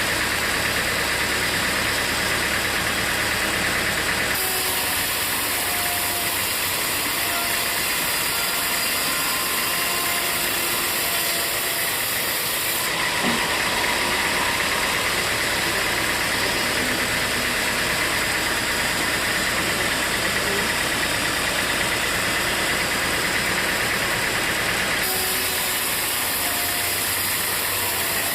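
Sawmill machinery running steadily, a continuous engine-like noise. Its character changes abruptly three times.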